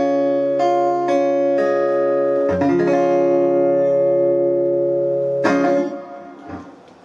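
Acoustic guitar picking the closing notes of a song over held, ringing chords, then one last strummed chord about five and a half seconds in that rings out and fades away.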